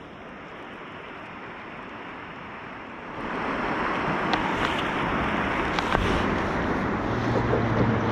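Steady rush of flowing river water mixed with wind on the microphone, growing louder about three seconds in.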